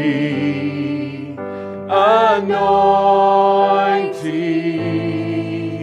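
Slow gospel worship music between sung lines: held chords that change twice, with a short wordless vocal phrase about two seconds in.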